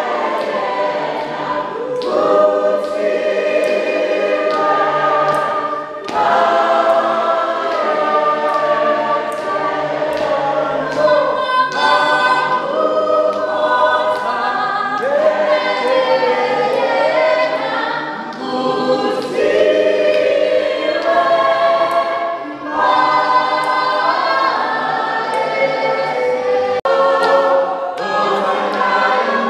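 A group of voices singing a gospel hymn in harmony without instruments, in long held phrases with short breaks between them.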